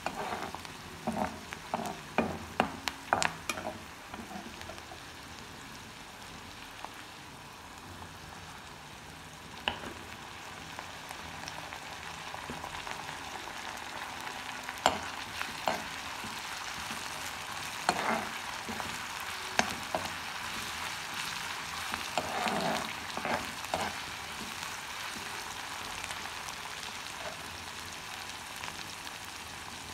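Chopped onions and whole spices sizzling in hot oil in a black wok, with a steel spoon scraping and clinking against the pan as they are stirred: a cluster of clinks in the first few seconds and more in the second half. The sizzle gets a little louder about a third of the way in.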